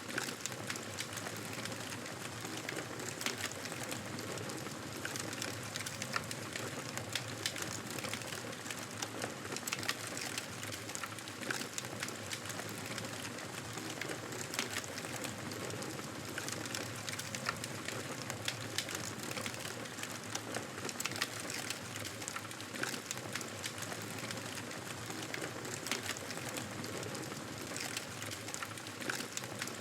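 Wood fire crackling in a fireplace: a steady soft hiss dotted with many small, irregular pops and snaps.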